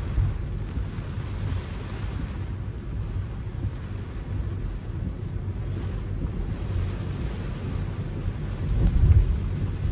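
Cabin noise of an electric Tesla Model 3 driving on a wet road: a steady low road rumble with tyre hiss, briefly louder about nine seconds in.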